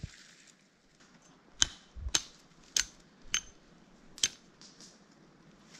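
Green wood being broken off a sapling: about five sharp cracks and snaps, starting about a second and a half in.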